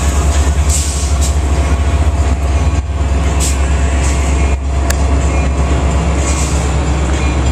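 Metra commuter train standing at the platform with its diesel locomotive idling: a steady low drone with a faint pulse, and a few short hisses.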